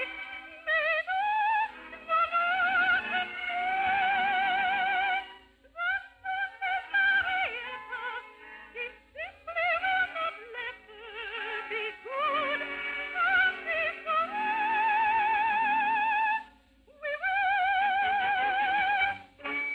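A soprano sings an operetta number with orchestra, in long high notes with heavy vibrato and quick runs, pausing briefly for breath twice.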